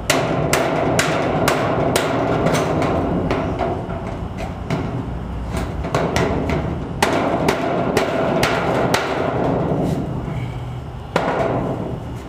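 Body hammer striking a dented metal carport roof panel in runs of quick blows, the sheet metal ringing after each strike, with a last single blow near the end.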